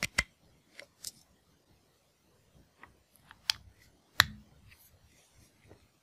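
Sharp plastic clicks and taps of a USB cable connector being pushed into a compact white wall charger and the charger and phone being handled. The loudest is a click with a dull knock about four seconds in.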